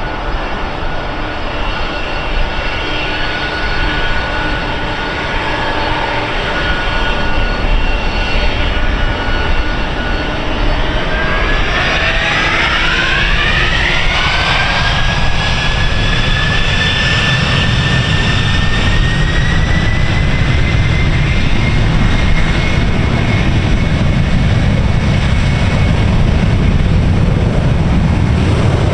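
Boeing 767 freighter's twin turbofan engines whining steadily at low power. About eleven seconds in, their whine rises sharply in pitch as they spool up to takeoff thrust, then holds high over a deep rumble that grows louder toward the end.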